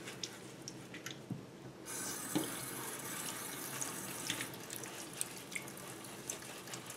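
Bathroom sink faucet turned on about two seconds in, running steadily, as a cloth diaper is rinsed under it. Small splashes and drips come from the cloth being worked in the water.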